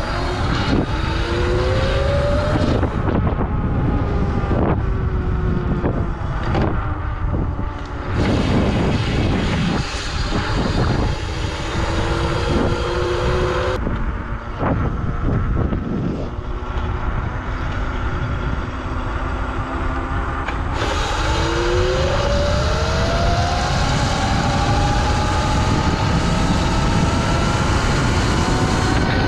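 Electric mini-bike motor (Electro&Co "One" motor on a modded Razor MX650) whining under acceleration, its pitch rising several times as the bike speeds up, over heavy wind rush on the microphone.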